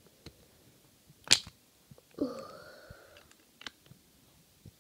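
Handling noise from a small plastic case: a sharp click a little over a second in, then a short squeaky pitched tone lasting about a second, and a few lighter clicks.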